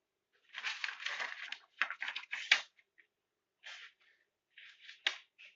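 Handling noise: crinkly rustling and small clicks in clusters, with a sharper click near the end.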